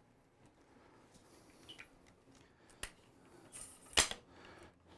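Aluminium tripod leg locks and legs being worked to extend the first leg section: a few quiet scattered clicks, the loudest a sharp snap about four seconds in.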